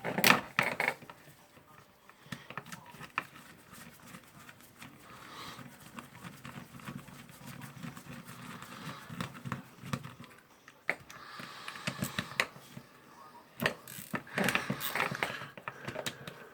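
Small metal clicks, taps and scraping as a hand key turns out the screws of a rotary hammer drill's gear housing, with handling of the metal parts; the loudest knocks come in clusters at the start and near the end.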